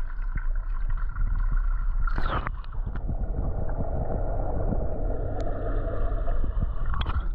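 Pool water lapping and sloshing against a camera held at the waterline, with a splash about two seconds in as it goes under; after that a muffled underwater rumble and hiss.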